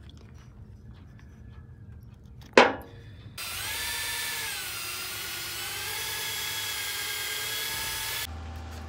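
Electric drill spinning a mixing rod in a plastic tub of thick bedding compound for about five seconds. Its motor note dips and recovers as the compound drags, and it stops abruptly. A single sharp knock comes shortly before the drill starts.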